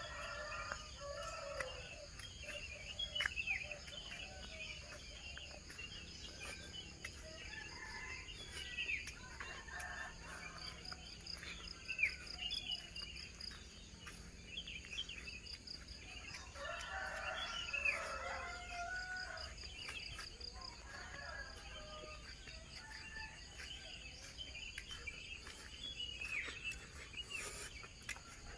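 A rooster crowing, its loudest call a little past the middle, among many small birds chirping. A steady, high, pulsing insect chorus runs underneath.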